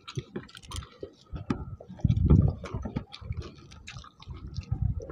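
Close-up eating sounds of rice and chicken curry eaten by hand: wet chewing and smacking with many short sticky clicks. About two seconds in there is a louder low rumble lasting about half a second.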